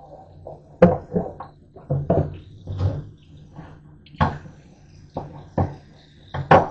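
Hand-washing dishes at a stainless steel sink: irregular knocks and clatters of dishware against the sink and wire dish rack, with the faucet running into the basin. The sharpest knocks come about a second in, just past four seconds and near the end.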